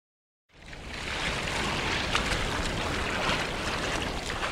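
Sound effect of churning, splashing water, fading in about half a second in and then holding steady.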